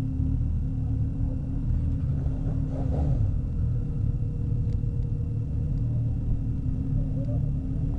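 Several sport motorcycle engines idling together in a steady low rumble, with a brief rev about three seconds in.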